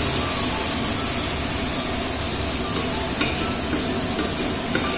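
Onion and garlic paste frying in hot oil in a steel karahi: a steady sizzling hiss, with two light clicks, one a little after three seconds in and one near the end.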